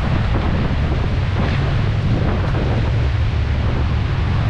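Steady rushing of a waterfall, loud and unbroken, with wind rumbling on the microphone.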